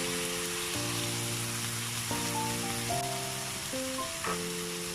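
Background music of sustained chords that change every half second or so, over a steady sizzle of chicken in a pan that has just had a little water added.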